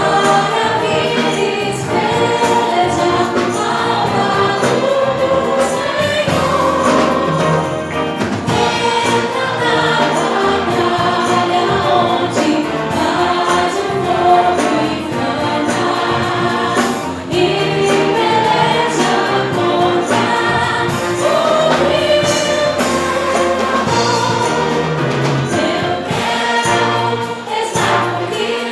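Choir singing gospel music, loud and continuous.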